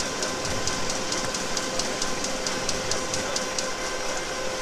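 Komori Lithrone S29 sheetfed offset press running in production: a steady mechanical hum with a rapid regular ticking, about four to five ticks a second, that stops about four seconds in.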